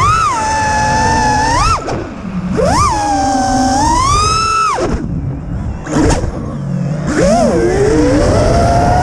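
FPV quadcopter's four iFlight 2207 1900kv brushless motors whining, the pitch falling sharply when the throttle is chopped and climbing again when it is punched, several times over, with wind rushing past the onboard microphone.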